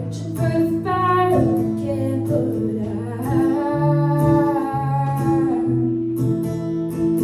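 A woman singing a slow song over acoustic guitar, holding a long note through the middle.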